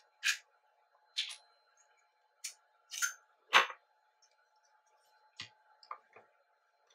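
Aluminium power-bank tube being taken apart by hand: its screw-off metal end caps and the 18650 cell with its small board are pulled out and set down on a wooden table. It gives a string of separate light clicks and knocks, the loudest and deepest about three and a half seconds in.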